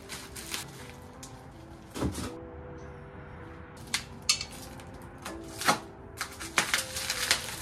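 Plastic wrapping crinkling and crackling in irregular bursts as it is pulled off a new stainless exhaust pipe, over background music.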